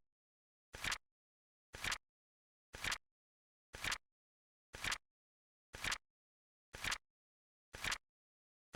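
Countdown timer's ticking sound effect: a sharp click about once every second, with dead silence between ticks.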